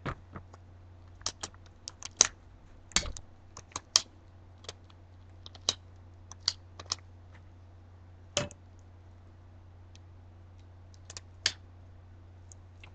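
Irregular sharp clicks and light taps from latex-gloved hands handling a wine glass. They come in quick clusters at first and are sparser later.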